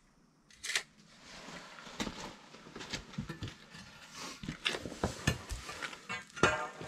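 A hand conduit bender and a length of 3/4-inch EMT steel conduit handled on a concrete walk: scattered knocks and scrapes, then metal clanks with a short ring near the end as the conduit is set into the bender.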